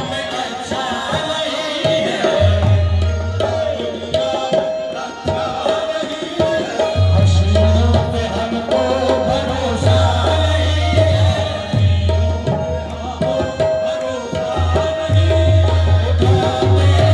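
Live qawwali music: tabla drumming with harmoniums holding a steady drone and men singing over them.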